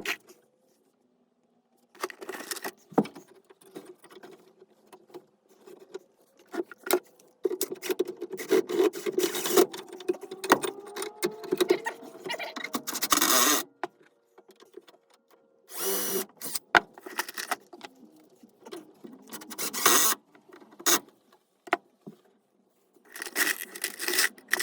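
Power drill running in short bursts of a few seconds on wood, with clicks and knocks between the bursts.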